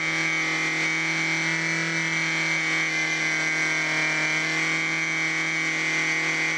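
Cox .049 model engine converted to diesel, running steadily at high, constant speed while driving a small DC motor as a generator: an even, unchanging buzz.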